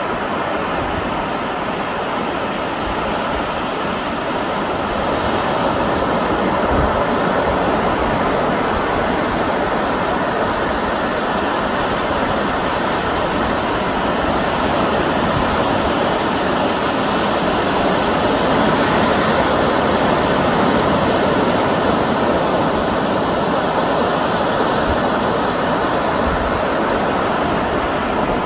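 Steady rushing of sea surf and wind, with low rumbles of wind on the microphone.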